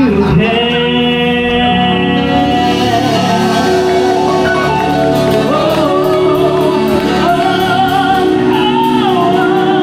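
Live singing with instrumental backing, the voice holding long notes.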